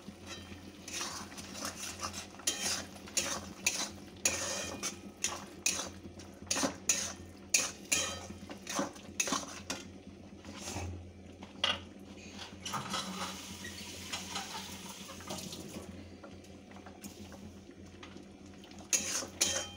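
Steel spatula scraping and clinking against a metal cooking pan as green peas and salt are stirred into a thick masala gravy. The clicks come irregularly and fast, then thin out for a few seconds about two-thirds through.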